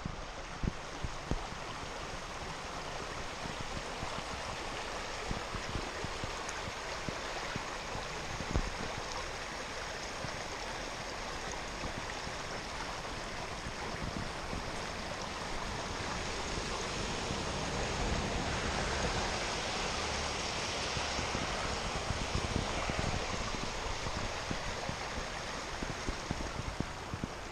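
Rain-swollen, muddy creek rushing in steady flood flow, a little louder past the middle, with occasional low thumps on the microphone.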